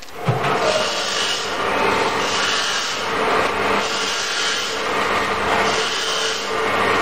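QC-150 washcloth-making machine running steadily: a continuous mechanical clatter over a faint hum, swelling and easing about once a second.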